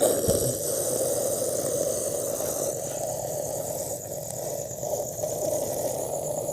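Steady distant roar of freeway traffic, a constant rushing hum that sets in abruptly and holds level. Crickets keep up a steady high trill behind it.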